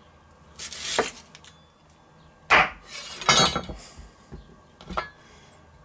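Chef's knife cutting through onion and zucchini on a wooden cutting board: a few separate cuts, each a short crunch ending in a knock of the blade on the board.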